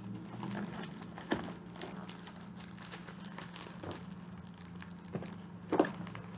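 Clear plastic bag of yarn being handled and crinkling, with sharper crackles about a second in and again near the end.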